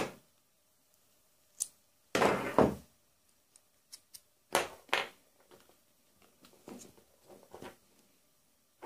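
Screwdriver bits and a bit adapter being handled over a plastic bit case: scattered light clicks and clacks of small hard parts, with a short scrape about two seconds in that is the loudest sound.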